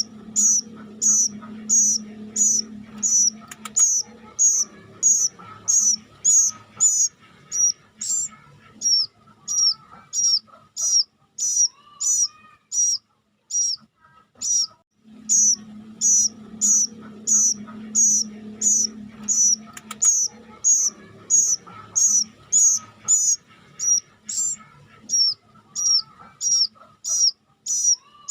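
Young plaintive cuckoo (kedasih kelabu) giving short, shrill calls over and over, about two a second. A low hum sounds beneath them at the start and again about halfway through.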